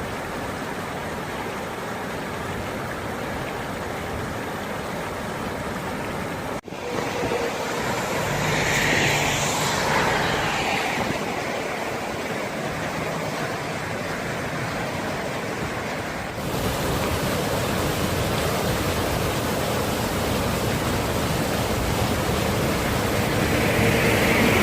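Steady rush of heavy rain and running rainwater. It breaks off sharply about a quarter of the way in, then swells louder for a few seconds.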